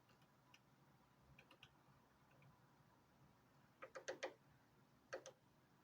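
Woodpecker pecking on a wooden deck: a few faint taps, then a quick run of about four sharp strikes about four seconds in and three more about a second later.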